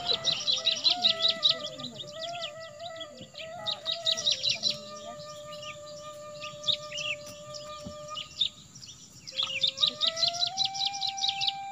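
Birds chirping in rapid trills, in bursts of a second or so, over soft background music of long held notes that step slowly up and down.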